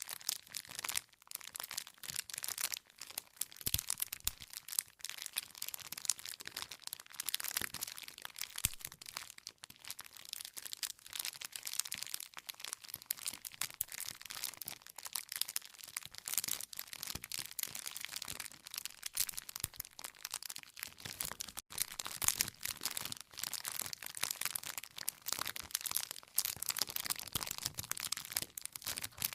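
Wood fire crackling: a dense, irregular run of sharp pops and snaps from burning logs, with no steady roar underneath.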